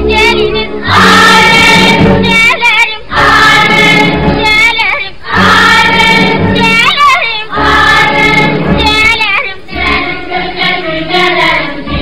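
Music with voices singing long, wavering held notes over a bass line, in phrases of about two seconds each.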